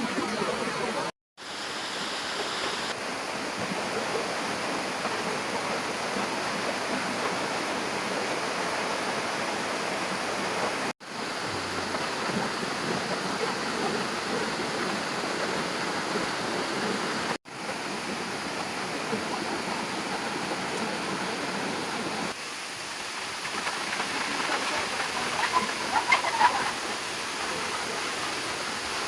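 Waterfall: a steady rush of falling water that drops out abruptly three times. A few short, louder sounds come near the end.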